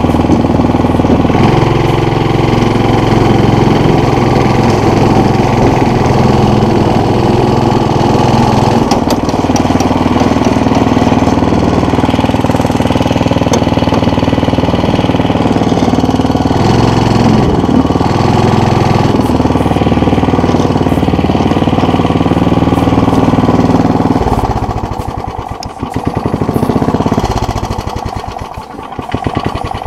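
Go-kart's small engine running close to the microphone while the kart is driven, its pitch shifting a few times with the throttle. About 24 seconds in it drops off, picks up briefly once, then winds down as the kart slows.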